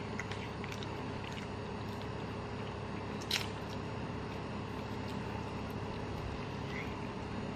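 A person bites into and chews a fried chicken wing, with one sharp crunch a little over three seconds in and a few faint clicks, over a steady background hum.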